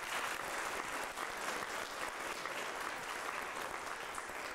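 Audience applauding: many hands clapping in a dense, even patter that slowly dies away toward the end.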